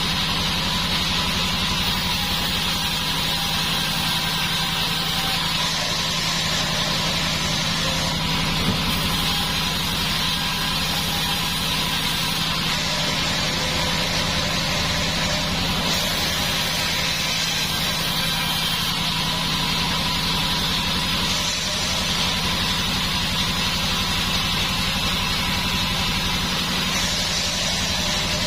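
A 36-inch band saw mill running with a steady mechanical drone and hum that stays level throughout.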